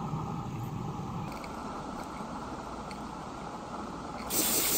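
Live-steam 7/8-scale Forney locomotive (a converted Accucraft Emma) simmering while it raises steam, with a steady background hiss. Near the end a short, loud hiss of escaping steam stands out.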